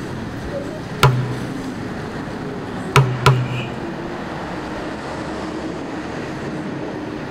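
Heavy blows like hammering, one about a second in and two close together around three seconds, each with a short low ring, over steady background noise: demolition work on the houses.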